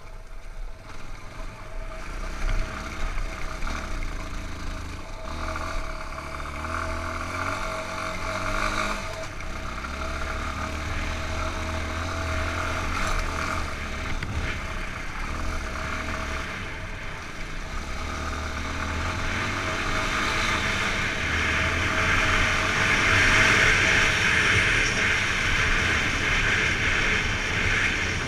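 Yamaha XTZ 250 Lander's single-cylinder four-stroke engine running under way, heard from the bike. Wind rush on the microphone grows louder in the second half as the bike picks up speed.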